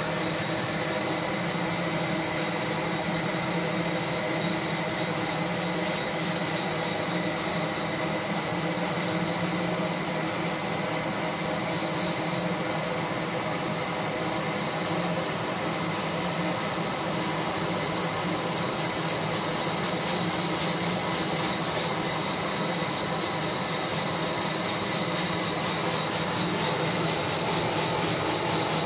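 Fracino Roastilino hot-air coffee roaster running: a steady blower whir with coffee beans rattling as they tumble in the roasting chamber, growing gradually louder over the second half.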